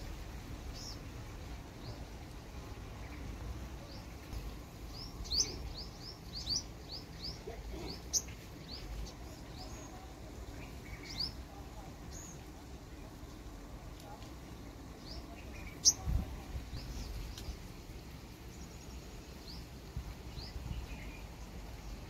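Purple sunbird calling: short, sharp, high chirps scattered through, with a quick run of several about a quarter of the way in. A single sharp click about three-quarters through, over a steady low outdoor rumble.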